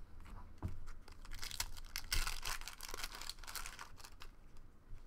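Foil wrapper of a Bowman Draft baseball card pack crinkling and tearing as it is opened by hand, with cards clicking and sliding against each other; the crackle is densest in the middle.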